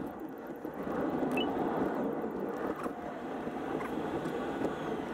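Steady tyre and road noise heard inside a Tesla's cabin as the car drives slowly, with no engine note.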